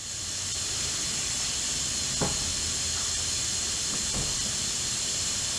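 Steady high hiss throughout, with two faint short metallic clicks about two and four seconds in from the differential ring gear being rocked against its pinion to take up the backlash for the dial indicator.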